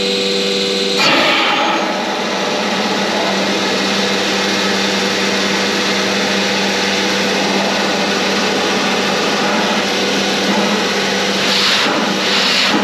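Becker vacuum pump feeding a CNC router's vacuum hold-down table, running steadily with a low hum under a rush of air. The hiss surges louder briefly about a second in and twice near the end.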